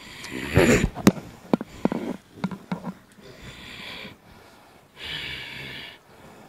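A man's forceful, hissing breaths and snorts: a loud burst of breath about half a second in, then two long hissing exhalations in the second half. Several sharp knocks fall in the first three seconds.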